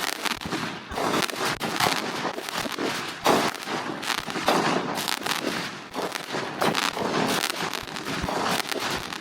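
Firework going off with a rapid, irregular crackle of many small pops over a hiss, with a few louder cracks.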